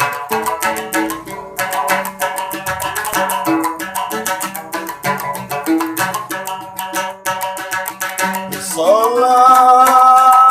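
Giant Sasak gambus, a large plucked lute, played in a quick run of plucked notes. Near the end a singing voice comes in on one long held note over it.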